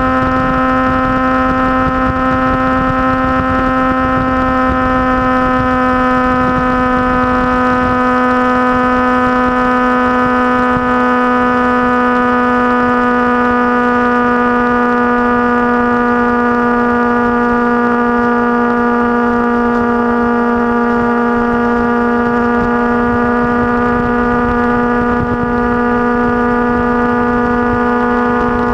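Motorcycle engine running under way at a steady cruise, a held engine note that sinks slowly in pitch as it eases off, with wind rush under it. Near the end the note shifts, as with a throttle or gear change.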